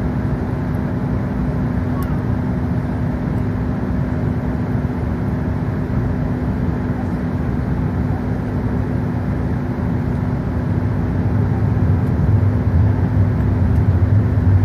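Steady cabin noise of an Airbus A380 taxiing, heard from a window seat over the wing: a continuous engine rumble with a steady hum. About eleven seconds in, the deep rumble grows louder.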